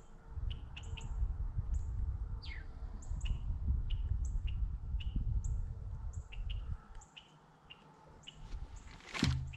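Small birds chirping repeatedly, short high notes a couple of times a second with one descending call among them, over a low rumble that fades out about seven seconds in. Near the end comes one sudden sharp sound.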